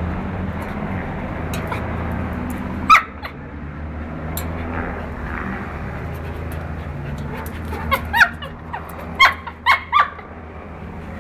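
Dog whimpering and yipping at a gate: one short yelp about three seconds in, then a quick run of short high yips near the end.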